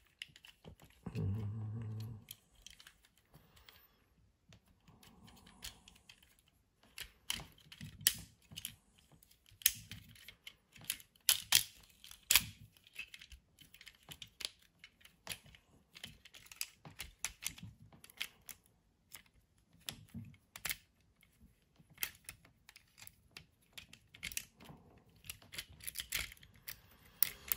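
Plastic parts of a vintage G1 Kup Transformers figure clicking and snapping irregularly as it is transformed by hand. The sharpest clicks come in a cluster around the middle.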